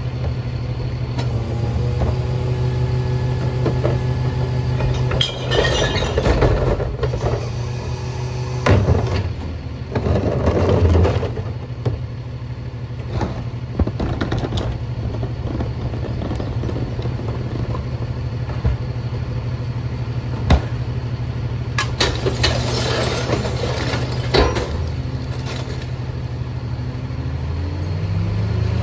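Freightliner M2 McNeilus rear-loader garbage truck running steadily at idle while recyclables from tipped carts clatter and crash into its hopper three times, around five, ten and twenty-three seconds in, with a few sharp knocks of the carts between. Near the end the engine speeds up for the packing cycle.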